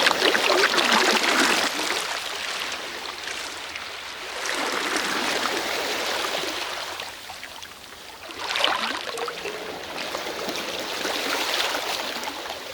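Sea waves washing onto the shore: three surges of rushing, fizzing water about four seconds apart, each swelling and then draining away.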